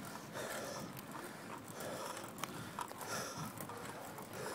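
Bicycle climbing a paved road, with scattered clicks and rattles from the bike and the handheld camera and soft, repeated swells of the tired rider's heavy breathing.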